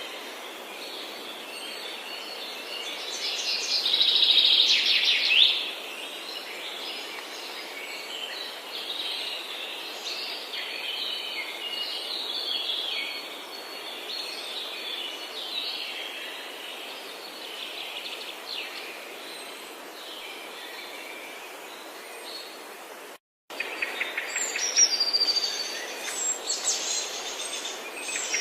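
Several forest songbirds singing and chirping over a steady background hiss. One bird sings loudly for about two seconds near the start. After a brief cut to silence about 23 seconds in, the songs come back louder and busier.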